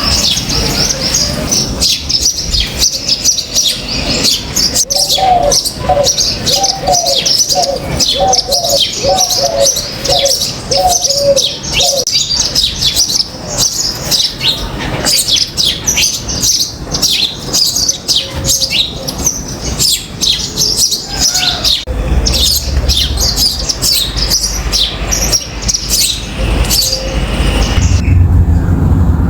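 Many small birds chirping in a dense, rapid, high-pitched chatter. A lower call repeats about eight times partway through, and a low rumble comes in during the second half.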